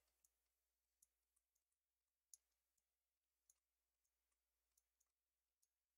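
Near silence with about ten faint, irregular clicks of a computer mouse, the clearest a little past two seconds in.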